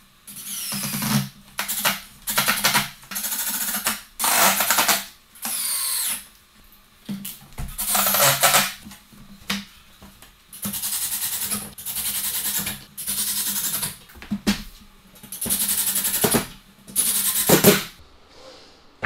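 Cordless drill with an extended Phillips bit driving screws through the barn door's side rails into soft pine, in a string of short runs of about half a second to a second each. The motor's pitch slides up and down as each screw goes in.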